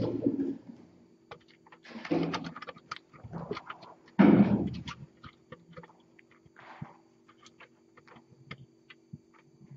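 Kittens jumping and landing on cat furniture: a few dull thumps, the loudest about four seconds in, then scattered light ticks and scrapes as they climb about.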